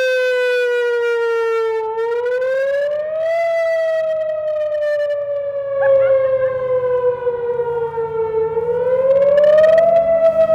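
Outdoor civil-defense warning siren sounding its test wail: one loud tone with overtones that slides slowly down, climbs about two to three seconds in, slides down again, and climbs once more near the end.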